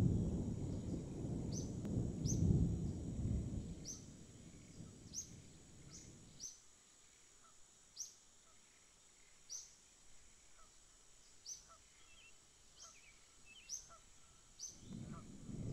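A bird calling repeatedly, short high chirps about once a second, over a steady high-pitched tone. A loud low rumbling noise fills the first six seconds, drops away, and returns near the end.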